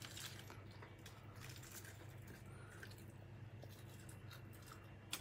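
Near silence: a low steady hum with faint scattered clicks and light rustles from fish being handled on a paper-lined plate, and one sharper click near the end.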